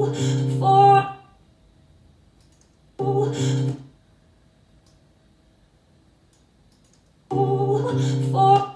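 Short stretches of a recorded song played back and stopped three times: at the start, about three seconds in, and near the end, each lasting about a second, with near quiet between. These are snippets of recorded takes being auditioned one after another while vocals are comped.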